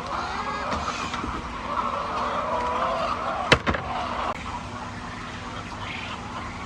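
Hens calling with drawn-out, wavering calls, with a single sharp knock about three and a half seconds in; after about four seconds the calls fade and a steady low hum remains.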